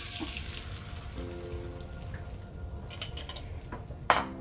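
Beaten egg sizzling in hot butter in a frying pan, the sizzle fading as the egg settles. A single sharp knock about four seconds in as the pan is moved on the gas hob's grate.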